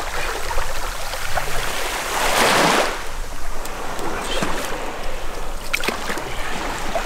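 Shallow sea water lapping around a wader's legs, with a short rush of splashing about two seconds in as a thrashing needlefish is handled and lifted out of the water.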